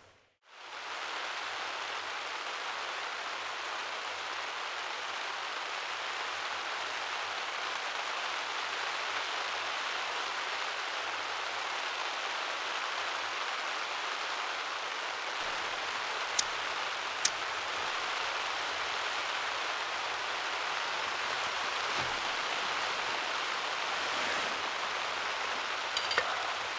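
Steady rain on nylon tent fabric, a continuous even patter, with two sharp clicks about two-thirds of the way through.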